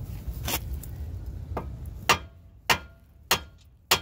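Hammer striking the steel steering knuckle of a 2003 Toyota Camry to knock the outer tie rod end's stud loose, each blow a sharp metallic bang. Two lighter blows come in the first two seconds, then four harder ones a little over half a second apart.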